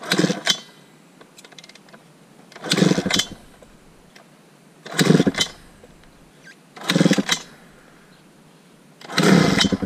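Honda CR250 two-stroke dirt bike being kick-started five times, each kick a short burst of about half a second roughly every two seconds, with the engine not catching and running.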